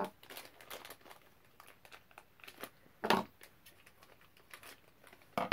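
Quiet crinkling and rustling of packaging as a small mystery pin box is opened by hand, with one louder brief rustle about three seconds in.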